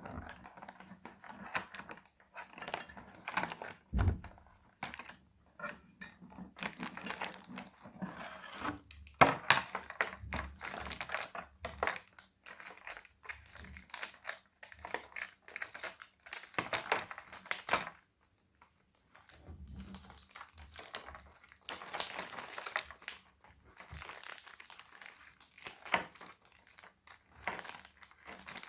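Packaging of an anime figure being unwrapped: irregular crinkling and rustling, with small clicks and a knock about four seconds in.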